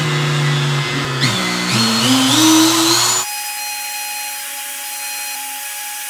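Handheld compact router with a flush-trim bit, its motor starting up and running loud with a steady whine. About two seconds in, its pitch climbs, and a second later the sound changes abruptly to a thinner, steady high whine.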